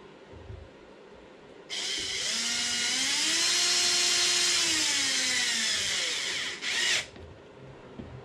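Cordless power driver turning a hex bit to run a screw into a plastic housing: the motor whine starts about two seconds in, rises in pitch, holds, then slows and stops, followed by a short second burst.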